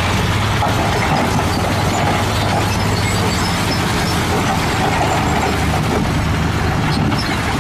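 Diesel dump truck engines running with a steady low hum while the raised beds tip rock and dirt, which slides and pours out in a steady rush.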